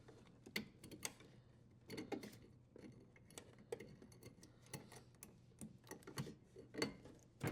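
Faint, irregular clicks and light knocks from hands unthreading the strain relief nut and working the power cord's strain relief out of the dishwasher's junction box.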